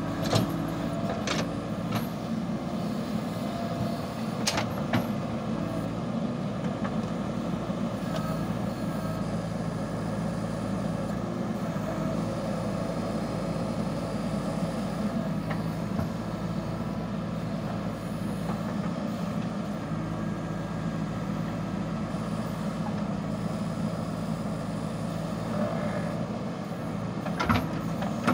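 JCB backhoe loader's diesel engine running steadily under load as the backhoe arm digs a trench. A few sharp clanks come from the arm and bucket near the start, about five seconds in, and near the end.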